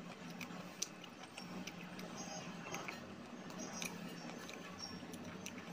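Faint, scattered small clicks and crunches of a person chewing a lump of dry clay (mitti), over a low steady hum.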